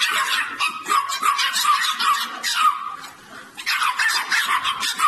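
Puppy yelping and whining, a quick run of short high yips that drop in pitch, with a brief lull about three seconds in.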